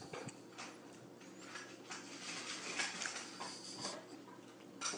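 Faint, scattered soft taps and scuffs of a cat's paws on a granite kitchen countertop as it hops about, over a low steady room hum.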